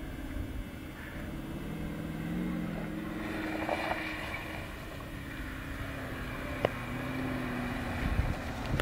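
Porsche Cayenne S's V8 engine revving up and down as the SUV drifts across a wet grass field, its pitch rising and falling. There is one sharp click about two-thirds of the way through.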